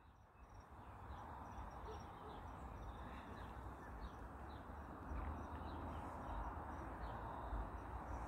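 Small birds chirping in the background, many short high calls scattered throughout, over a steady rushing noise and a low rumble.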